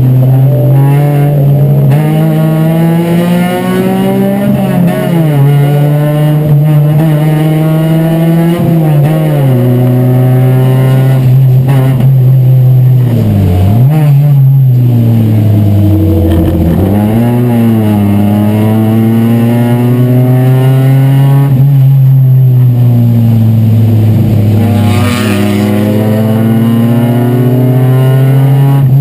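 Chevrolet Chevy race car's four-cylinder engine heard from inside the cabin at racing speed. It climbs through the revs and drops in pitch at each gear change, with deeper dips and recoveries where it slows for corners.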